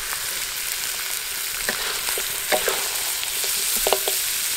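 A spoon scooping thick sambal lado tanak from a wok into a ceramic bowl: a few short scrapes and knocks of the spoon against the wok and the bowl, the last ones close together near the end, over a steady hiss.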